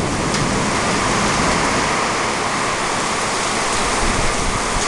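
Torrential thunderstorm rain, a steady loud rush of downpour.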